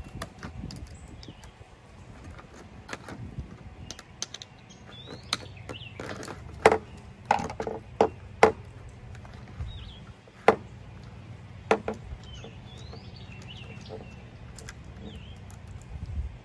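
Sharp clicks and knocks, about half a dozen in the middle of the stretch, as a chainsaw bar in its clear plastic cover and a flat metal combination wrench are handled, set against short bird chirps and a low steady hum.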